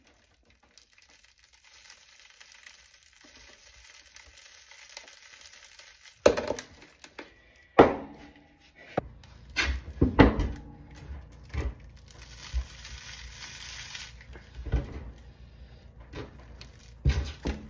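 Screwdriver scraping and prying at the shattered silicon carbide ceramic tiles of a shot armor plate, with ceramic grit grinding. From about six seconds in come a series of sharp knocks as the broken plate is worked apart, the loudest two near the start of that run.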